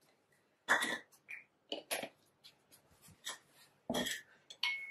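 Kitchen things being handled and set down on a table: a series of short knocks, clicks and rustles, with one knock near the end leaving a brief ringing tone.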